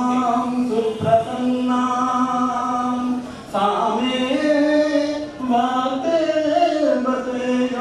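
A man singing a Sanskrit invocation prayer solo and unaccompanied, holding long notes that slowly rise and fall in pitch, with a short breath break about three and a half seconds in.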